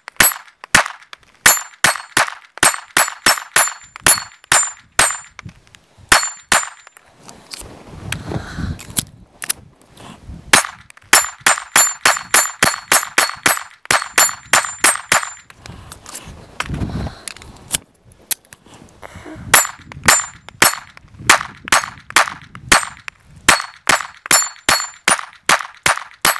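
Polymer80-built Glock 19 Gen 3 9mm pistol firing dozens of rounds in three rapid strings, with two short pauses between them. Many shots are followed by a brief high ring from the steel plate targets being hit.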